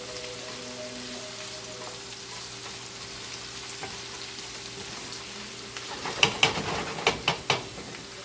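Chopped carrots, celery, onion and garlic sizzling in oil in a frying pan on high heat. Near the end come several sharp clacks of a utensil against the pan.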